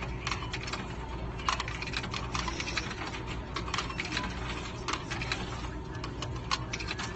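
Quarters being fed one by one into a self-checkout machine's coin slot, with irregular clicks and clinks of coins. A steady low hum runs underneath.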